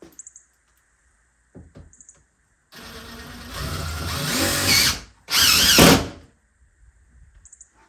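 Power drill driving a screw, in two runs: a longer one about three seconds in that builds in loudness, then a shorter, louder burst just after.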